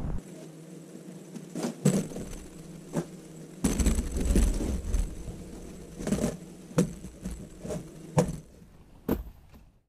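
Wooden blocks knocking and clattering on a workbench, a dozen or so irregular knocks, as the weights on a freshly glued-up panel are lifted off and stacked.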